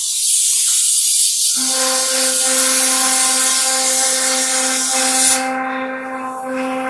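CNC router spindle running with a steady high whine, under a loud hiss that cuts off abruptly about five seconds in while the whine carries on.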